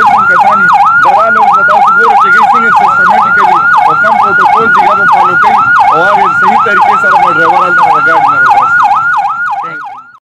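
Ambulance siren on a fast yelp, its pitch sweeping up and down about three times a second, fading out near the end.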